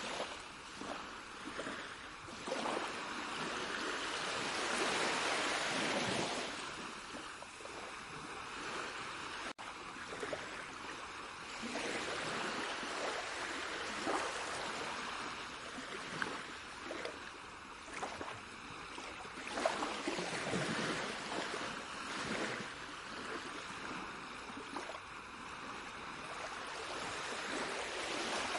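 Rushing water, a steady wash that swells and eases every few seconds, like surf or a fast stream.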